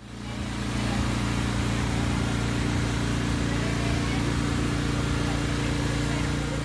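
An engine idling steadily: a low, even hum that fades in over the first second.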